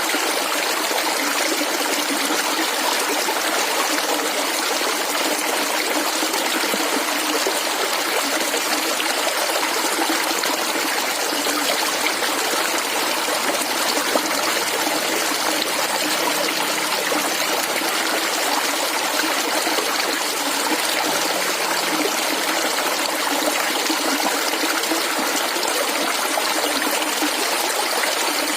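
Flowing stream water gurgling and trickling steadily, a constant even rush with no pauses.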